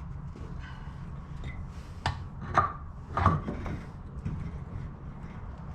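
Knocks and clanks of metal parts being handled while the nut is taken off a new CV axle. There are three sharp knocks, about two seconds in and twice more over the next second and a half, over a steady low hum.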